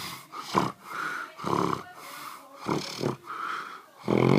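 A man snoring in his sleep: a run of short, uneven snores, the loudest near the end.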